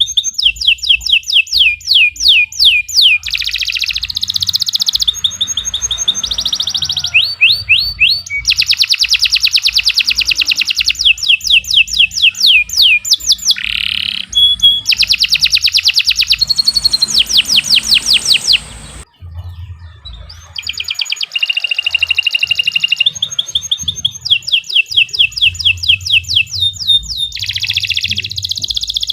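Domestic canary singing a long, continuous song of fast trills and rolls of rapidly repeated notes, switching to a new phrase every second or two, with a brief pause about two-thirds of the way through.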